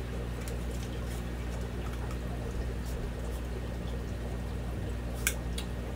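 Steady low hum and trickling water from a room full of running aquariums. A single sharp click of hard plastic parts comes a little over five seconds in.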